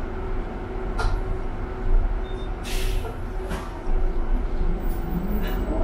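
Inside a city bus: the steady low rumble of the bus running, with two short hisses about three seconds in and a rising whine near the end.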